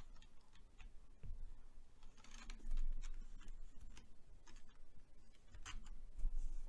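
Scattered computer keyboard keystrokes and mouse clicks, with a brief soft rustle about two and a half seconds in.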